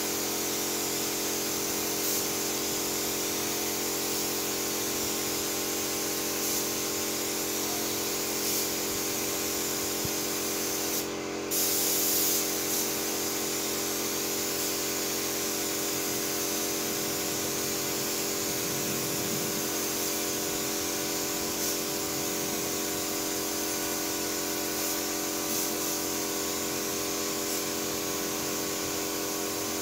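Compressed-air paint spray gun hissing steadily as it sprays paint onto a car body, over a steady machine hum. The hiss cuts out briefly about eleven seconds in, then resumes.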